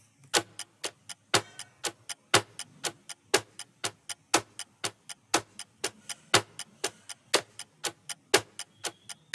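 Countdown timer sound effect: a clock ticking steadily, with a louder tick once a second and fainter ticks in between.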